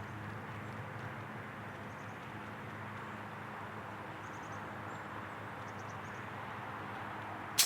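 Steady outdoor background hum with a few faint high bird chirps, then right at the end a single sharp crack as the .177 Daystate Mk4 Panther air rifle fires.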